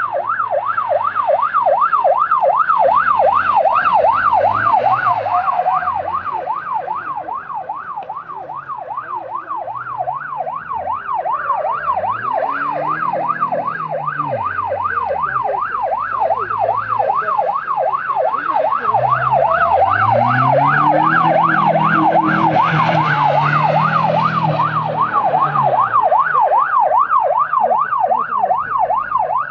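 Police car siren on a fast yelp, sweeping up and down about three times a second without a break. Under it the car's engine revs up and drops again and again as the car is slid around, loudest about two-thirds of the way through.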